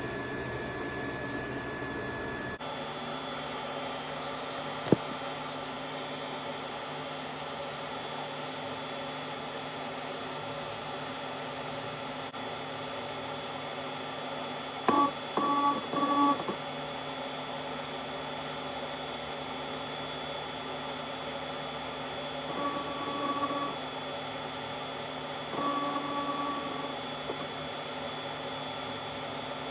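Hot air rework station blowing: a steady rush of air with a faint thin whine. There is a sharp click about five seconds in, and three short tonal sounds come in the second half.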